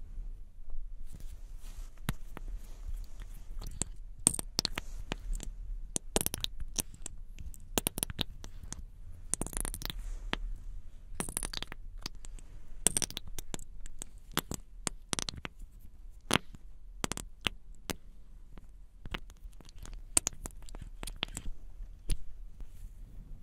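Close-miked handling of a plastic lip gloss tube and its cap: irregular taps, clicks and short scratchy scrapes, as the cap is worked off and the applicator wand drawn out.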